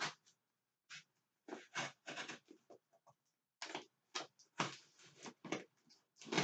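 A tightly sealed shipping package being worked open by hand: irregular bursts of rustling and scraping, several to the second.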